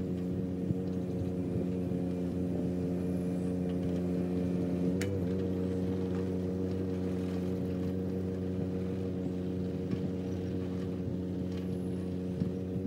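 John Deere 17D mini excavator's diesel engine running steadily at a constant speed, with a brief wobble in pitch and a click about five seconds in.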